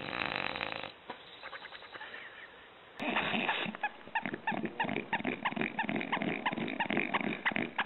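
A sleeping English bulldog's noisy snore in the first second. From about three seconds in, a dog gives a rapid run of short, high squeaks, about four a second.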